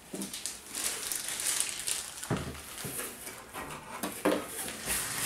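Polystyrene packing peanuts rustling and scraping against a plastic enclosure as they are brushed off it, with a couple of dull knocks a little over two and three seconds in as the plastic box is handled.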